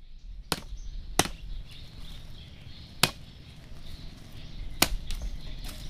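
Chopping blows, a blade striking hard: five sharp strikes at uneven intervals, the last one fainter.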